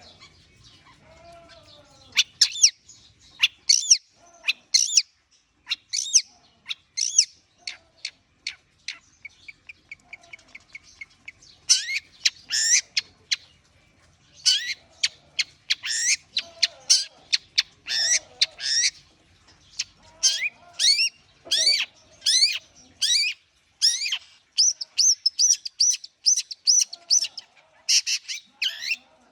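Long-tailed shrike (cendet) singing during a warm-up: a rapid, varied string of sharp high chirps, sweeps and chatter, with a fast soft trill about a third of the way in and a run of evenly repeated short notes later on.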